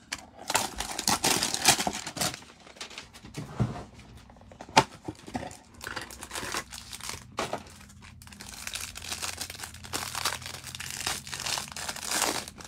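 Packaging of a Panini Mosaic football card hanger box being torn open and the card packs crinkling as they are ripped, in uneven rustling spells with a sharp snap about five seconds in.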